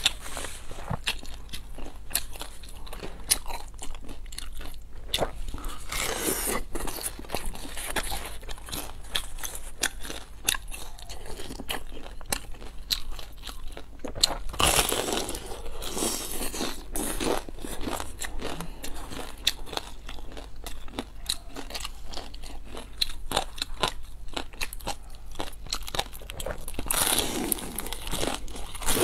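Close-miked eating: a crisp pan-fried vegetable-stuffed pastry is bitten into and chewed. Its fried crust crunches, and there are wet mouth clicks. Several louder crunchy bites stand out, about six seconds in, at the middle and near the end, with steady chewing between them.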